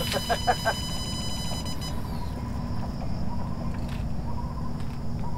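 Outdoor ambience at a lake: a bird gives a quick run of short hooting notes in the first second, over a steady low rumble. A high, thin steady whine runs alongside and stops about two seconds in.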